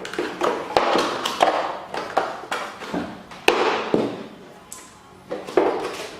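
Hands handling a boxed mechanical keyboard and its packaging: a run of irregular taps and knocks with short stretches of rustling and scraping. The sharpest knock comes about three and a half seconds in.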